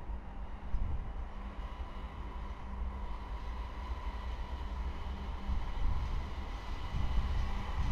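Diesel freight locomotives running as they move past, a steady engine hum over a low rumble.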